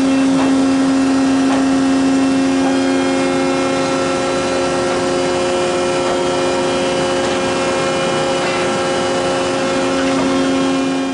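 Hydraulic power unit of an Oak vertical tube expander, a 20 HP electric motor driving a Vickers pump, running: a steady hum and whine holding several fixed tones, with a few faint ticks from the machine.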